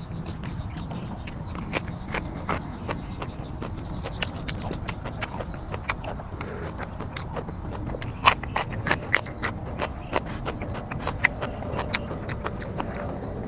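Close-miked eating sounds from a person chewing raw shrimp in a spicy chilli dressing: irregular wet lip smacks and mouth clicks, thickest about eight to ten seconds in.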